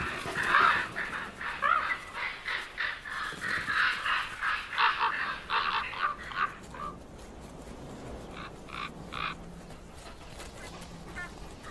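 Common ravens calling: a rapid run of short, harsh calls for about seven seconds, then a few more calls a little later.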